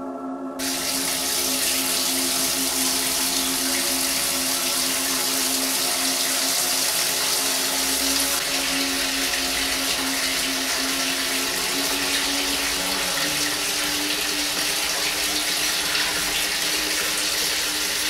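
Steady rush of water running from a kitchen tap into a sink, starting abruptly about half a second in. A low sustained musical drone continues underneath.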